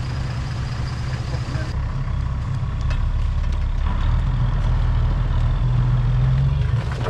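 Toyota LandCruiser 70-series ute's engine running under load as it works through deep mud, picking up revs and getting louder about three seconds in.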